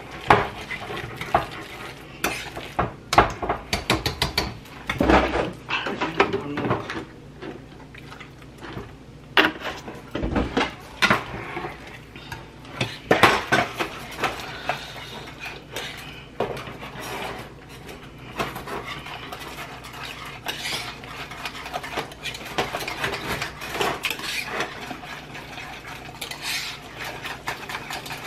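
A utensil knocking, clinking and scraping against a saucepan as mashed potatoes are stirred and mashed, in irregular taps and scrapes throughout.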